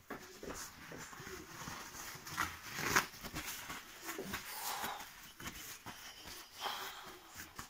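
Handling noise from the phone that is recording: fingers rubbing and knocking on it as it is picked up and moved, heard as irregular scrapes and clicks, the loudest about three seconds in.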